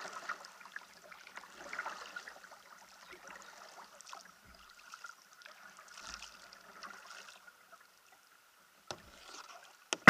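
Kayak paddle strokes in calm water: irregular splashing and dripping from the blades. A small click comes near the end, followed by a sharp knock, the loudest sound.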